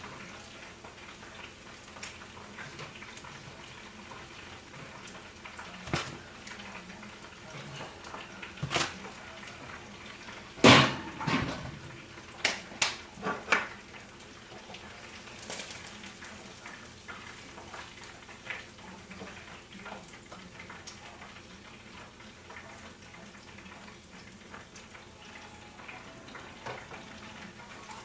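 Turkey wings frying in hot grease with a steady sizzle, broken by a string of sharp clanks of utensils against cookware, the loudest about eleven seconds in and several more over the next three seconds.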